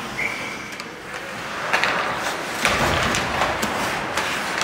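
Ice hockey play: skates scraping the ice and several sharp clacks of sticks and puck, with a short steady high tone just after the start.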